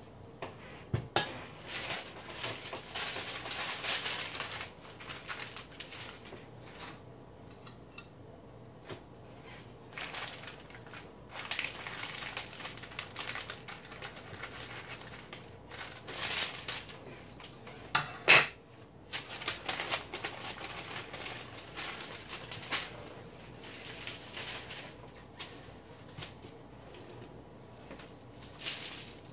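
Parchment paper rustling and crinkling as hands fold it over and press it flat on a table, with a few sharp taps and knocks. The loudest knock comes a little past halfway.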